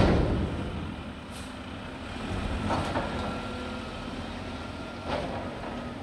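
Mack front-loading garbage truck with a McNeilus body pulling away, its diesel engine running and fading as it leaves. A sharp burst at the very start is the loudest sound, and smaller air-brake hisses come about three seconds and five seconds in.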